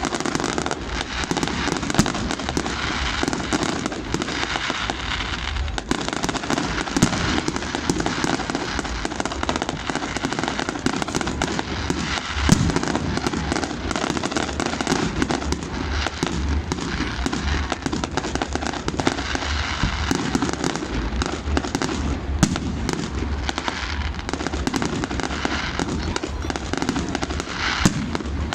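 Fireworks display: a continuous dense crackle of firework bursts, with a few sharper single bangs standing out, the loudest about twelve seconds in.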